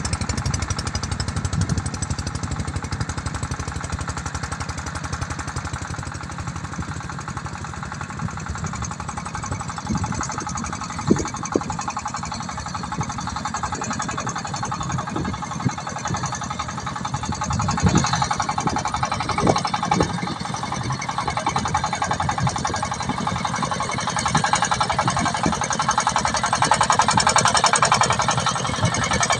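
Single-cylinder diesel engine of a công nông two-wheel-tractor cart chugging steadily under load as it hauls a heavy load of corn over rough ploughed ground. It grows louder near the end as it approaches, with a few sharp knocks partway through.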